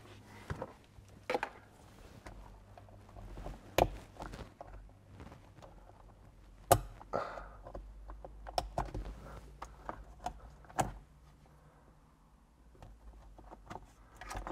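Irregular plastic clicks, taps and rustling as a dash cam power adapter and its wiring connectors are unplugged and pulled off behind a car's rear-view mirror. Three sharper clicks stand out, about four, seven and eleven seconds in.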